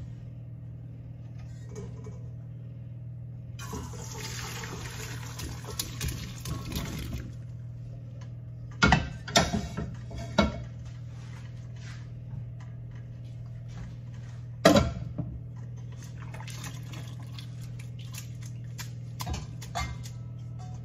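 Hot cooking water poured from a pot of parboiled potatoes into a stainless-steel colander sitting in a steel bowl, a rush of water lasting about three seconds. Several loud metal clanks follow as the pot and colander are handled, then lighter rattles. A steady low hum runs underneath.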